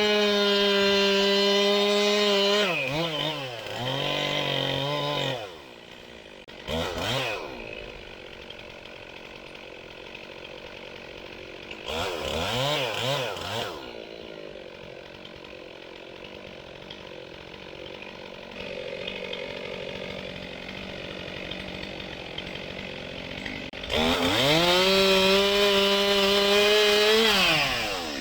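Two-stroke chainsaw run at high revs, then throttled down to idle with a couple of short revs, and opened up to high revs again about 24 seconds in before dropping back near the end.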